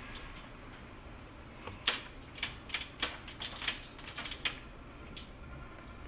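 An irregular run of about a dozen sharp clicks or taps over a steady quiet background. They start about two seconds in and die away after about four and a half seconds.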